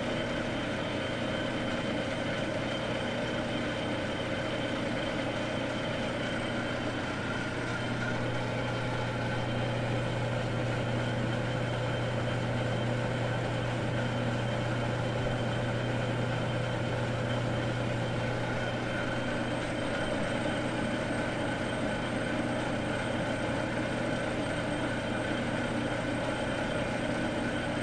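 Metal lathe running steadily with a constant hum, spinning a chunk of scrap steel while it is cleaned up.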